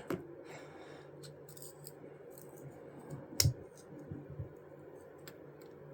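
A few light, scattered clicks from the parts of a Benchmade Emerson folding knife being handled as it is taken apart at the pivot, with one sharper click about three and a half seconds in.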